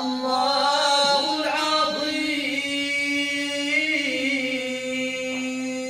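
Quranic verses chanted by a man in the Moroccan Filali recitation style, sung in long, held melodic notes.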